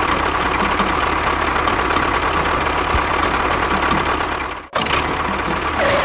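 Tractor engine running steadily, with a short break about three-quarters of the way through.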